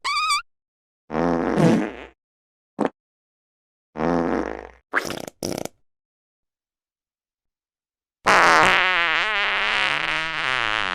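A run of fart sound effects parted by dead silence: a squeaky wavering one at the start, then several short farts over the next six seconds. After a silent gap, a long wavering fart begins about eight seconds in.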